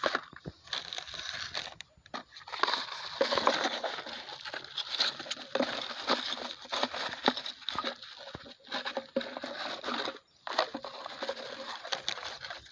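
Plastic bottles and polythene garbage crinkling and crunching as they are carried, in irregular crackles with short pauses about two seconds in and again near ten seconds.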